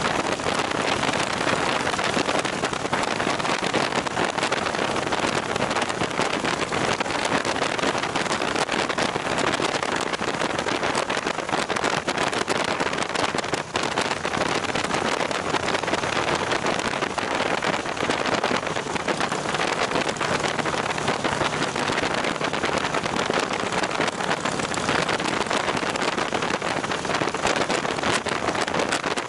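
Steady rush of wind and road noise from a vehicle cruising at highway speed, with a low engine hum underneath.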